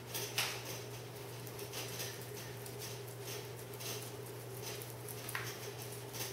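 Quiet indoor room tone: a steady low hum with soft, irregular small clicks and rustles, the sharpest about half a second in.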